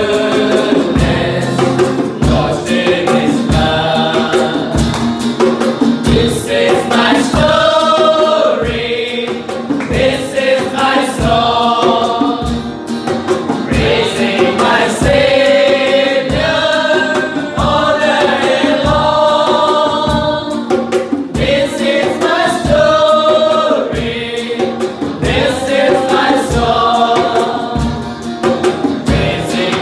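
Group of male voices singing a gospel hymn together, accompanied by acoustic guitar and a pair of hand drums keeping a steady beat.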